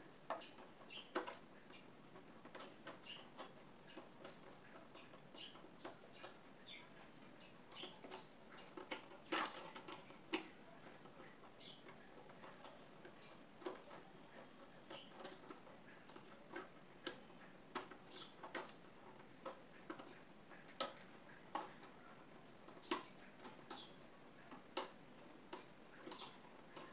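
Faint, irregular clicks and light metal taps from fingers handling the needle plate and presser foot of a black sewing machine, with a sharper knock about nine seconds in.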